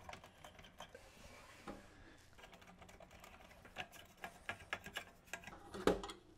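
Faint clicks and light scraping of a screwdriver working a screw in the metal CRT mounting bracket of a Commodore PET 4032, with a louder knock near the end.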